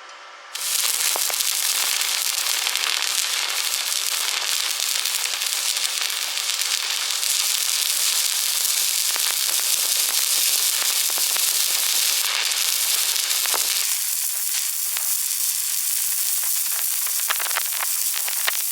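Stick (arc) welding arc crackling and hissing steadily, striking up about half a second in. Near the end the low part of the sound drops away and sharper pops stand out.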